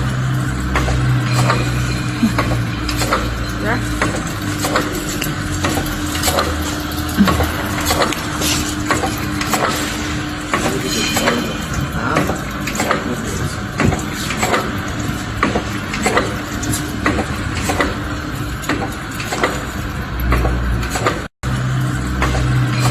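Automatic nugget and burger-patty forming machine (XZ-TY100-V) running: a steady electric motor hum with regular mechanical clacks from the forming mechanism, about one a second. The sound cuts out for a moment near the end.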